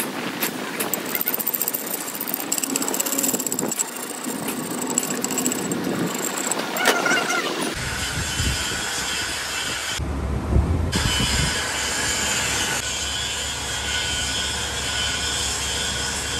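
A machine-shop lathe running with a truck's differential pinion shaft turning in its chuck. The first half is scratchy, clicking metal-working noise. About eight seconds in, the sound changes abruptly to a steady low machine hum.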